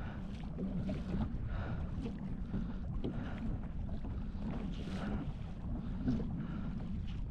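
Wind buffeting the microphone and water moving around a small canoe, a steady low rumble with soft swishes coming about once a second.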